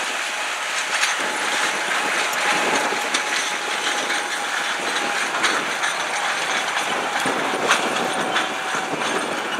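Ford 1156 articulated four-wheel-drive tractor's Cummins turbocharged six-cylinder diesel working steadily under load, pulling a nine-shank disk ripper through corn stalks. A faint steady whine runs under the engine noise, with scattered clanks and rattles from the tractor and the tillage tool.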